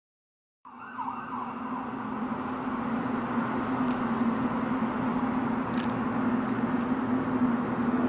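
A steady low drone with a held humming tone, over a wash of city noise, starting suddenly just under a second in and slowly growing louder. It is one of the unexplained loud sky noises that people reported hearing over cities in January 2012.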